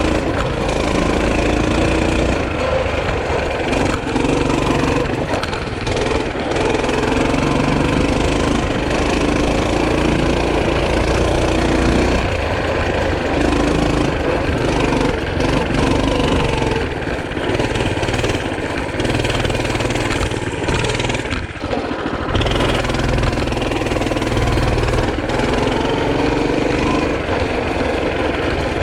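Small engine running steadily throughout, its pitch rising and falling over and over as the throttle is opened and eased off.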